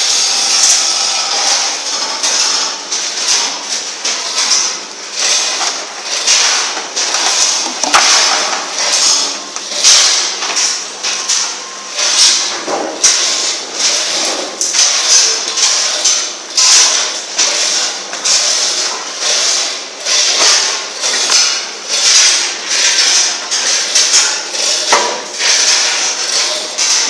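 Loud metal knocks and clanks, repeating unevenly about twice a second, as a bottle baling press's door lock and bale are worked on by hand.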